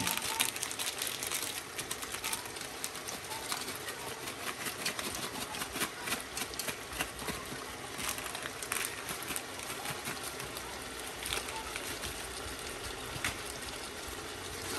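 Chicken and spices frying in hot oil in a cooking pot, a steady sizzle with many small irregular crackles.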